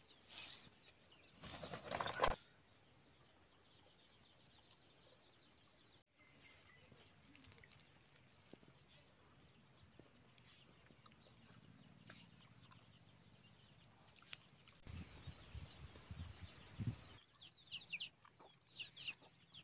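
Quiet outdoor background with scattered bird calls, including short high chirps near the end, and a brief louder noise about two seconds in.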